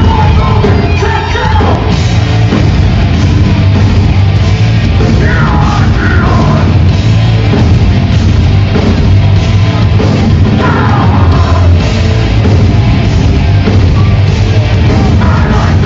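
Heavy metal band playing live and very loud, heard from the crowd: distorted electric guitars, bass and drums, with shouted vocals coming in a couple of times.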